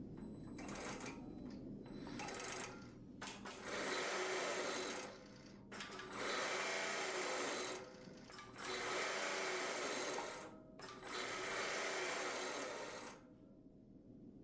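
Hydraulic workholding pump running in bursts as its valves clamp each circuit in turn: two short bursts, then four longer ones of about two seconds each, with gaps between.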